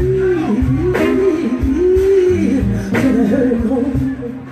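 Live soul-blues band playing, with a woman singing into a microphone over drums, bass and guitar. A drum hit sounds about every two seconds.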